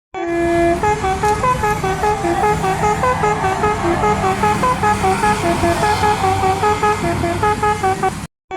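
A tour bus's multi-tone 'telolet basuri' musical horn plays a fast tune over a low rumble. The tune opens on one held note, then runs through quick stepped notes, several a second, and cuts off abruptly near the end.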